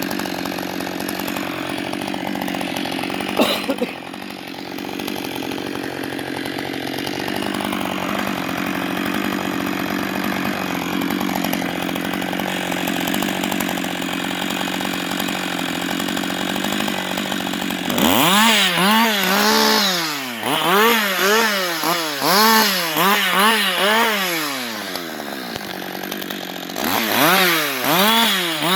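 Husqvarna 560XP two-stroke chainsaw running at a steady high pitch, with one brief sharp knock a few seconds in. From about two-thirds of the way through it is revved up and down repeatedly, about once a second.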